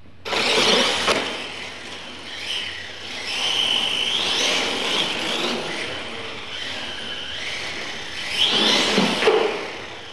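Radio-controlled monster trucks launching from the start and racing on a concrete floor: a high motor whine that rises and falls over tyre noise, starting suddenly just after the start of the sound, with another loud surge near the end.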